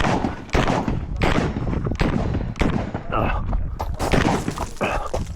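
PTR91 semi-automatic .308 rifle firing a string of single shots, roughly one to two a second, each a sharp crack.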